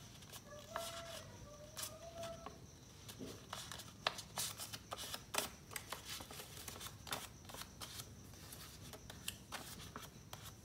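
A sheet of paper being folded and creased into a paper airplane: crinkling and crackling with sharp creasing clicks, busiest from about three seconds in.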